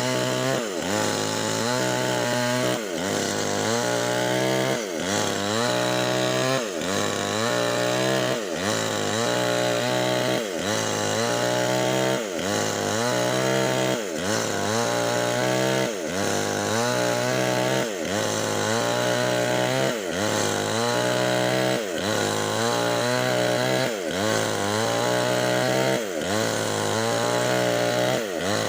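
Nixon two-stroke chainsaw with a 25-inch bar running at full throttle while ripping lengthwise through a Medang log. The engine pitch sags and recovers about once a second as the chain loads up in the cut.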